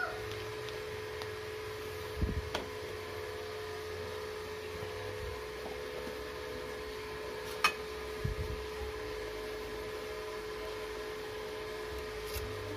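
A few soft clicks and knocks of a spoon and spatula scooping margarine from a plastic tub, over a steady hum.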